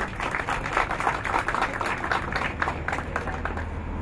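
A small crowd applauding, the clapping thinning out and stopping a little before the end.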